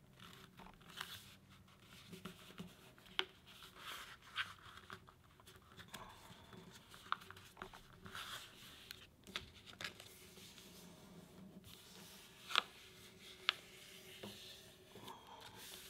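A sheet of paper being folded and creased by hand into a paper airplane: faint rustling and scraping as it is smoothed down, with a few sharp ticks.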